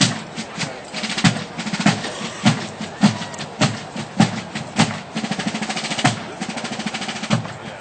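Military marching drum cadence: snare drums playing rapid strokes and rolls over a steady beat of a little under two strokes a second, with heavy low thumps on the main beats.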